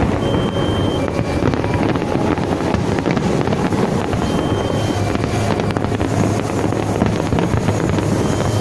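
Steady rumbling noise with wind buffeting the microphone, and a faint high two-note beep repeating about every four seconds.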